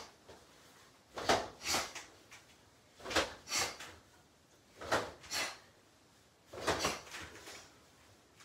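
Karate uniforms swishing as two people snap their legs out and back in a kicking drill: short swishes in pairs, four pairs about two seconds apart.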